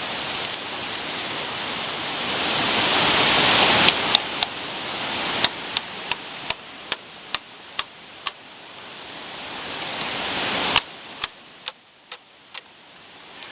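Bamboo being split lengthwise: two runs of sharp cracks and snaps, each run following a building rushing noise, over a steady hiss.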